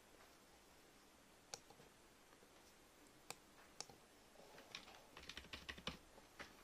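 Faint clicks of a computer mouse and keyboard: a few single clicks spaced out, then a quick run of clicks near the end.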